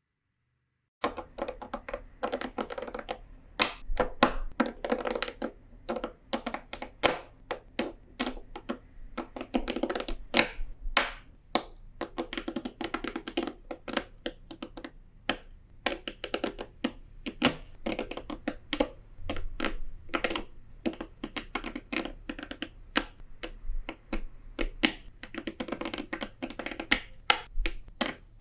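Dense, irregular clicking and tapping of small hard objects, starting about a second in and running on with clusters of quick clicks.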